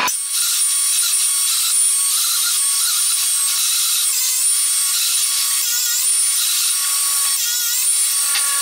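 Proxxon DH 40 benchtop thicknesser running, its cutter planing a board of wood fed through it, with a steady high whine over the cutting noise.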